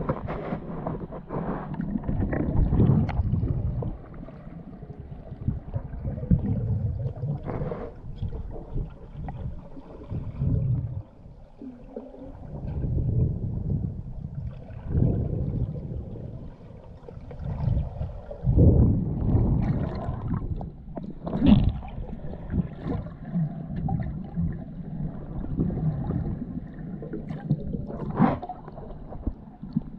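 Muffled underwater rushing and sloshing as a diver swims with the camera, rising and falling in uneven swells. There are a few sharp knocks, and a burst of bubbles sounds near the end.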